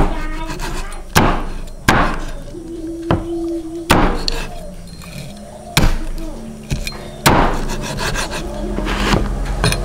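A series of sharp knocks on wood: about half a dozen heavy blows at uneven intervals of one to two seconds, with a few lighter ones between.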